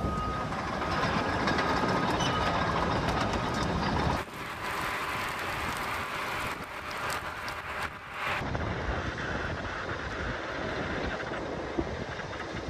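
Steady rumbling roar of a wildfire burning close by, with no speech. The sound changes abruptly at two cuts, about four and eight seconds in, and a faint steady tone runs through the first part.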